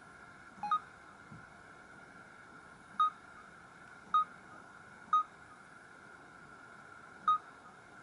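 Samsung Corby GT-S3650 touchscreen tap tones: short electronic beeps as menu items are touched. There are five, the first a quick pair rising in pitch, then single beeps spaced about a second or two apart.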